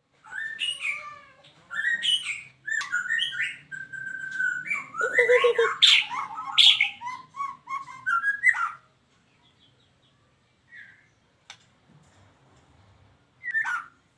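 Young white-rumped shama (Medan murai batu), eight months old, singing a rapid run of varied whistled phrases for about nine seconds. It then falls mostly quiet, with a single short call, a click, and one more call near the end.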